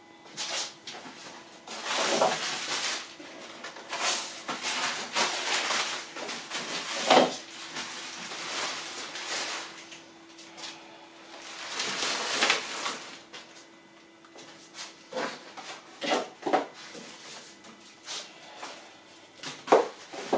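Rummaging through a cupboard full of stored shopping bags: irregular bursts of bag rustling and handling, with a few knocks of items and the cupboard.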